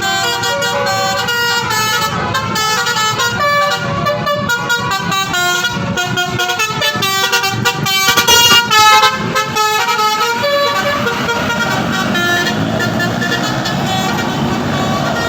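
Indonesian bus 'telolet' horn, a multi-tone musical air horn, playing a quick melody of short stepped notes over the bus engine. The tune thins out in the last few seconds.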